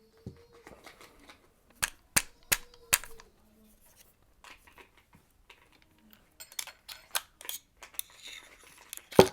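Sharp metallic clicks and clinks of a paintball marker's small metal parts being handled as the ram is taken out of a System X NME: four clicks about two to three seconds in, a quicker run of clicks later, and a loud clack near the end.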